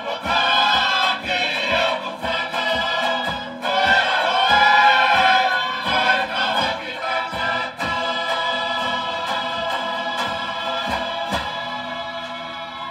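Live Tongan string band with banjo, strumming a steady beat under group singing as tau'olunga dance accompaniment. About eight seconds in the beat gives way to long held sung notes that fade near the end as the song closes.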